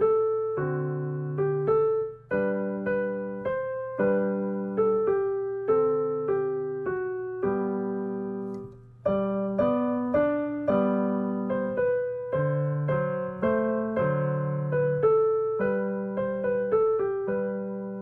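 Solo piano music: a slow, gentle melody over chords, each note struck and fading, about two a second, with short pauses twice.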